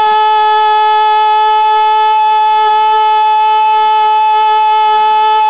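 A man's voice holding one long, high sung note into a microphone over a PA system, steady in pitch and loud.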